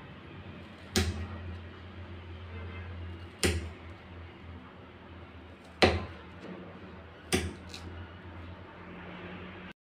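Kitchen knife cutting through slices of peeled raw potato, the blade knocking sharply on the cutting surface four times, a couple of seconds apart, over a steady low hum.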